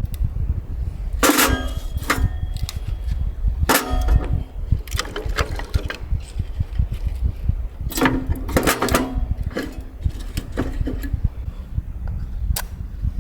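Strong wind buffeting the microphone in a low rumble, with a few short bursts of clattering and clinking, like hard objects knocking together, about a second in, near four seconds, and again around eight to nine seconds.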